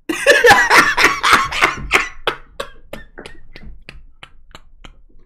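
A man laughing hard: loud, rapid bursts at first, trailing off into a run of quieter pulses at about three a second.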